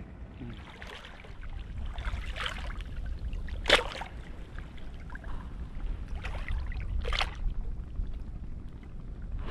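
Sea water lapping and splashing close by in short, irregular bursts, the loudest a sharp splash about four seconds in, over a low wind rumble on the microphone.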